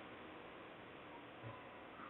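Near silence: a faint steady hiss, with one soft low thump about one and a half seconds in.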